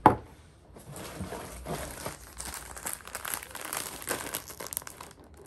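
A metal tin of ground coffee is set down on a wooden table with one sharp knock. Right after, plastic packets of face masks crinkle and rustle as they are handled.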